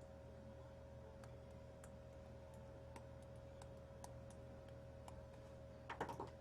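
Near silence: a steady electrical hum with faint, scattered clicks, and a brief cluster of louder clicks near the end.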